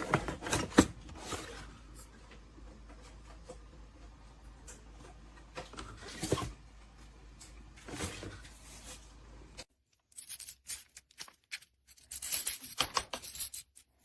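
Plastic toy pieces being handled: scattered sharp clicks and knocks over a low steady hum, then, after a sudden change about ten seconds in, a quick run of crackly clicks.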